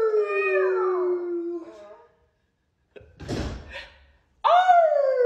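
Husky puppy howling: one long howl sliding down in pitch that dies away about two seconds in, a short breathy rush of noise, then a second howl starting near the end.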